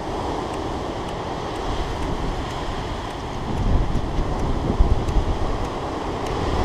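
Strong wind blowing steadily, with gusts buffeting the microphone in low rumbles, heaviest about halfway through.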